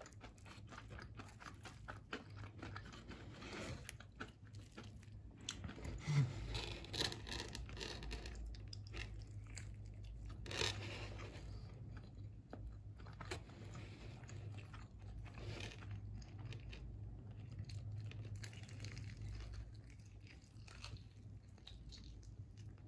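Close-up chewing and crunching of crispy battered fried chicken, with small crackles as the fried coating is bitten and chewed.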